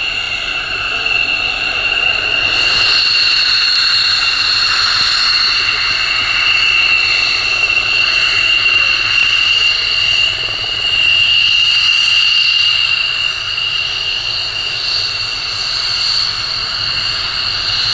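F-16 Fighting Falcon's Pratt & Whitney F100 turbofan whining at low taxi power as the jet rolls along the taxiway: a steady, high, two-tone whine over a rushing hiss, swelling a little as the jet passes.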